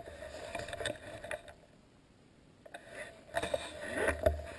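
Footsteps crunching and rustling through dry leaf litter and bracken, uneven, with a pause in the middle and heavier steps near the end.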